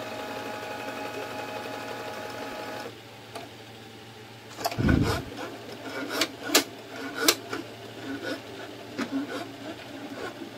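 Canon G-series ink tank printer's internal motor whining steadily, stopping about three seconds in. Then a heavy thump and scattered clicks and knocks as the printer's lid is handled and shut.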